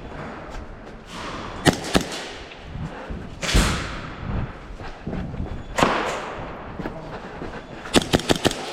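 Airsoft gun firing: single sharp shots spaced a second or more apart, some with a short echo, then a quick string of five or six shots near the end.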